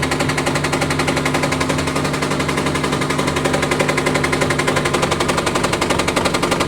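IFB top-load washing machine running with a loud, rapid 'dag dag' knocking, about ten knocks a second and steady throughout. This is the machine's noise fault; the repairer suspects the tub balancer, tub cover or base plate.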